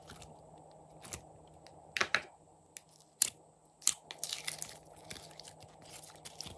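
Pink glitter slime being squeezed and kneaded by hand, giving sharp clicks and pops. They come a second or so apart at first, then in a quick run about four seconds in.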